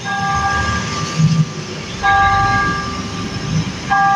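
A horn sounding three long, steady blasts in a row, over a low rumble.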